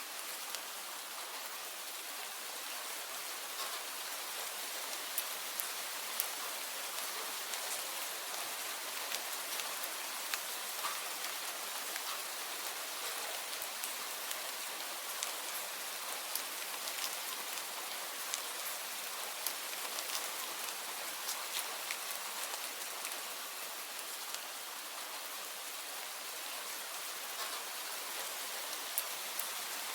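Steady rain falling on a surface: an even hiss with many scattered individual drop ticks.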